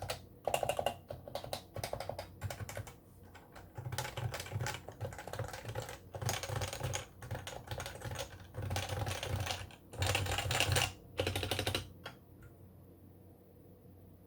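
Typing on an HHKB Pro 2 keyboard with Topre switches: quick bursts of keystrokes with short pauses between them. The typing stops about two seconds before the end.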